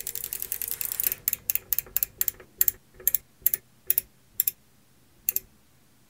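A rapid run of mechanical clicks that slows steadily, the gaps growing until a last click about five seconds in. A faint hum sits under the fast clicks at the start.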